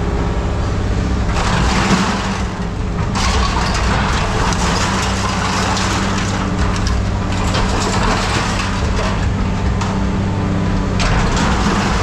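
An engine running steadily, with a long stretch of crunching, rattling noise over it from about a second in, typical of scrap metal being handled or crushed.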